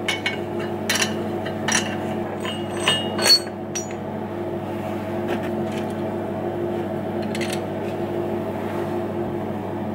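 Steel clamp bars and hold-down tools being loosened and lifted off a milling machine table: a series of metallic clinks and knocks in the first few seconds, the loudest about three seconds in, then only scattered faint clicks. A steady machine hum runs underneath.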